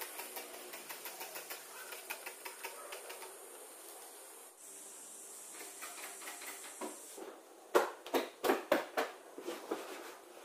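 Household dusting: a trigger spray bottle and a cleaning cloth rubbing over furniture, heard as a quick run of short swishes over a faint steady hiss. The swishes grow louder in a cluster a little before the end.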